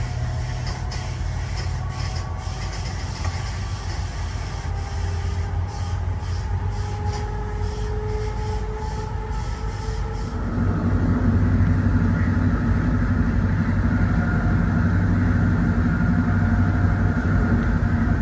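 Running noise of a moving sleeper-train carriage: a steady rumble of wheels on the rails with a faint whine and light clicks. About ten seconds in it gets louder and heavier, as heard out in the carriage's side corridor.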